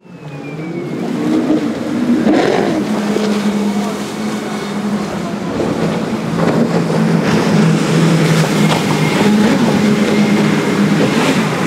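Speedboat engines running with a steady low drone that shifts slightly in pitch, over a haze of water and wind noise, fading in over the first second.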